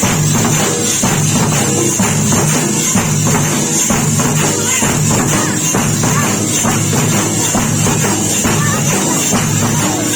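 Group of drums being beaten in a fast, steady rhythm, loud and continuous, with a jingling, rattling edge over the beat.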